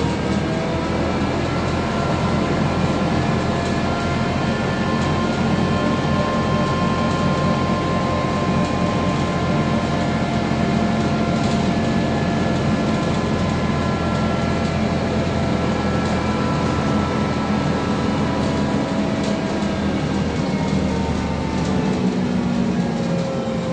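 VMZ-5298.01 trolleybus heard from inside the passenger cabin while under way: the electric traction drive whines in several steady tones over tyre and road rumble, and its pitch falls near the end.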